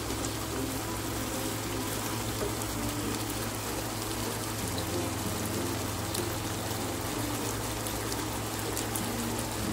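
Chicken and potatoes in a sweet soy sauce simmering in a wok, the sauce bubbling and sizzling steadily as it cooks down into the meat.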